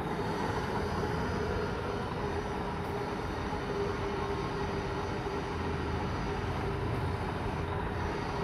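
HMT M1TR milling machine running steadily, a constant mid-pitched tone over a low rumble.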